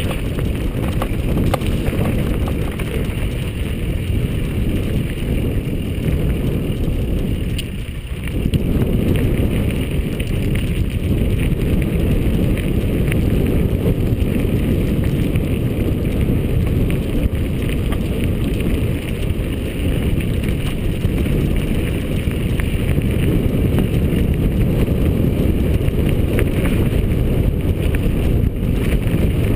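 Wind buffeting the microphone of a camera on a moving mountain bike, a steady low rumble, with light clicks and rattles from the bike running over the dirt singletrack; the rumble drops briefly about eight seconds in.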